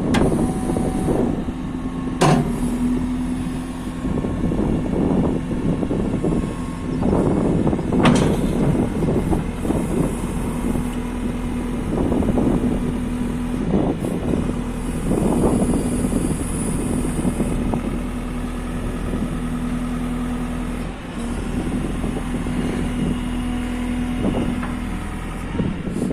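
JCB 3CX backhoe loader's diesel engine running steadily under varying load, with two sharp knocks about two and eight seconds in.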